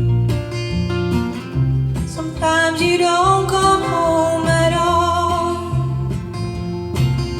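Live country song: acoustic guitar strummed under a steady walking low line, with a singer's held, gliding melody over it.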